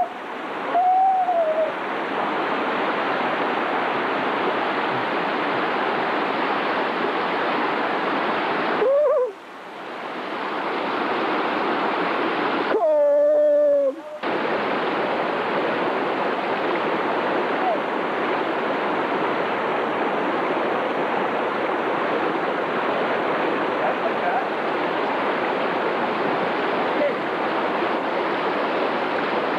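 Steady rushing noise of water, like waves or surf. A brief wavering, cry-like tone sounds about thirteen seconds in.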